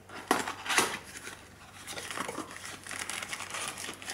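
Packaging crinkling and rustling as it is handled, with two sharp crackles in the first second, then steady crinkling.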